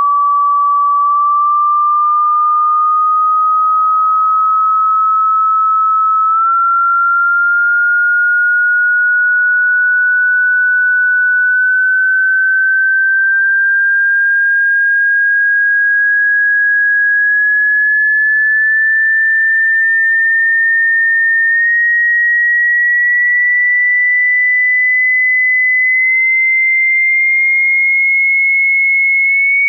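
A loud, steady pure sine tone sweeping slowly upward in pitch, from about 1 kHz to about 2 kHz, played to shake water and dust out of a phone speaker so that it stops sounding distorted.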